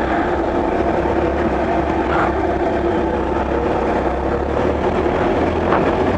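Kawasaki ZX-12R's inline-four engine running steadily under way, with a constant rush of wind, picked up by a helmet-mounted microphone.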